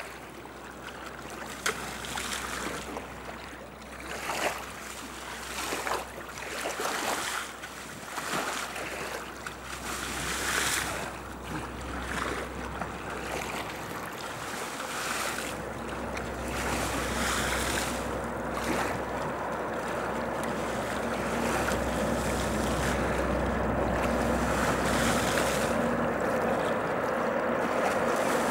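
River water splashing and lapping in irregular surges for the first half. After that a steady rumble with a low hum builds and grows louder toward the end.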